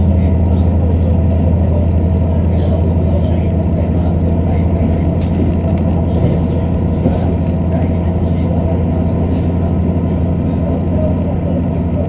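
Steady running noise heard inside a limited express train carriage under way: a low, even hum with the rumble of wheels on the rails.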